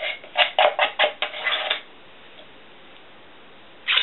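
Thick cake batter being scraped out of a metal cup into a foil pan: a run of about seven quick scraping strokes against the cup in the first two seconds, then a single knock near the end.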